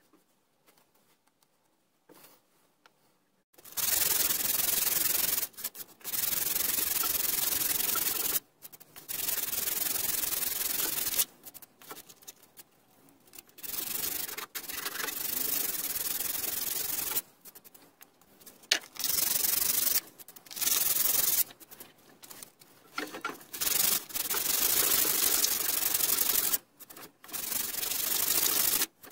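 Sandpaper rubbed by hand over wooden trim, smoothing down dried wood filler, in spells of one to four seconds with short pauses between them. The first few seconds are nearly silent before the sanding starts.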